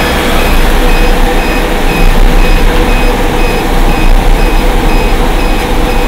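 Steady running noise of a car engine idling with its air conditioning switched on after a refrigerant recharge. A high electronic beep repeats about twice a second over it, from the AC recovery and recharge machine.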